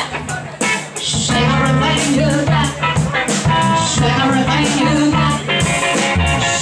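Live band playing an upbeat song, with singing over a drum beat and a steady bass line.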